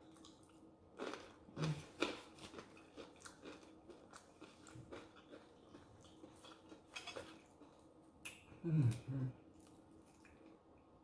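Close-miked chewing and biting of food, with crisp crackles and crunches through the mouthfuls. A brief low hum near nine seconds in is the loudest moment.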